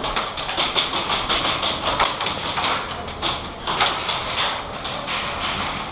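Rapid, irregular series of sharp clicks and snaps, several a second: airsoft guns firing.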